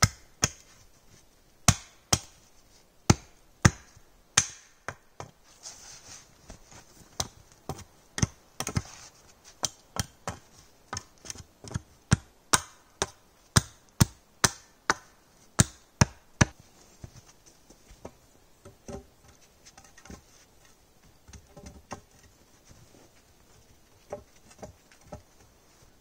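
A hatchet striking wood in sharp, repeated blows, about two a second, for some fifteen seconds, then only fainter, scattered knocks.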